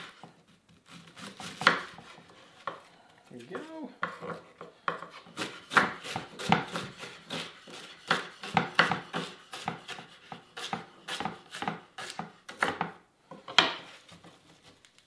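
Kitchen knife finely slicing cabbage on a wooden cutting board: a fast, steady run of cuts, several a second, each ending in a knock on the board. It begins with a few scattered cuts and stops about a second and a half before the end.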